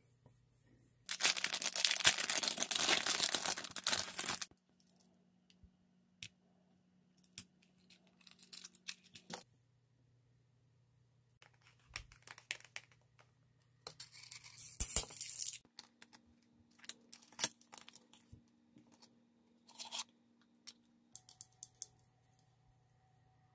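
Makeup packaging being torn open and unwrapped: two loud stretches of tearing and crinkling, about three seconds long near the start and under two seconds in the middle. Small taps and clicks of the box and cases being handled come between.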